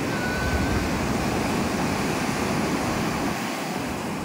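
Sea surf breaking and washing up over the sand: a steady rushing noise.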